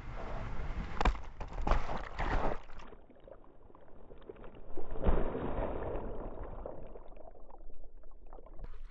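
Ocean wave breaking over a waterproof action camera in the surf: rushing, churning water with several sharp splashing hits in the first few seconds and another heavy crash about five seconds in.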